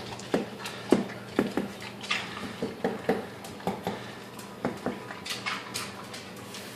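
A beagle's teeth clicking and knocking against a tile floor as he picks up food, his overbite bringing his teeth down onto the tile. An irregular series of sharp clicks, a couple a second, thinning out near the end.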